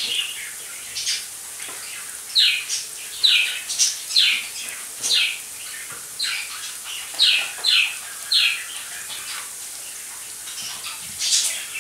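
Sliced onions frying gently in oil in a non-stick pan, a steady sizzling hiss. Over it, a bird chirps about a dozen times, each a short call sliding down in pitch, roughly one a second with a brief pause near the end.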